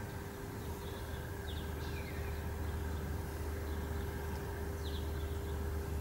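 A steady low rumble that grows a little louder after about a second, with a few short chirps from birds above it.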